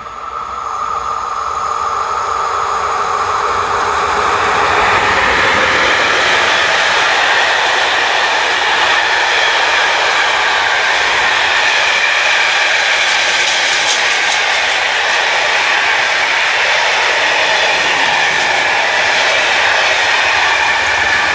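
A container freight train hauled by an EU07 electric locomotive rolls past close by. A steady whine is heard as the locomotive approaches, then a loud, even rumble and clatter of the container wagons passing, with high squealing tones over it in the later part.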